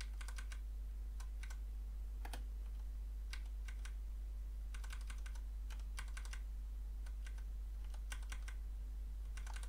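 Computer keyboard typing in short bursts of a few keystrokes, about once a second, as code lines are edited, over a steady low hum.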